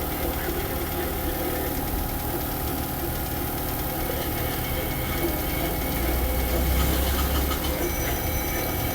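Steady low mechanical hum and rumble with several constant tones, the low rumble swelling for a moment about six seconds in.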